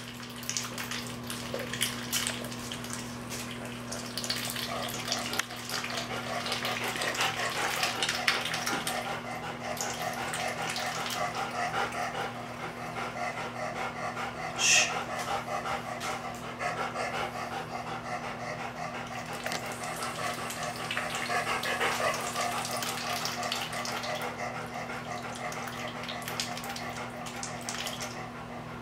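Female mallard duck paddling in bathtub water and dabbling at grain in a wet hand, with continual small splashes and bill pecks over a steady low hum, and a dog panting.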